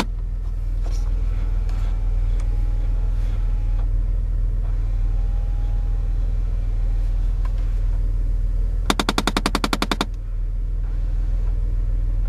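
Rapid machine-gun-like knocking from the 2006 Chevy Impala's dashboard, about fourteen knocks a second for about a second, starting around nine seconds in, over the car's steady low running hum. The knocking comes from the HVAC air-inlet (recirculation) door actuator motor, which the owner believes is jammed; disconnecting that motor later stopped the noise. Faint whirring of the vent actuator motors can be heard in the first half.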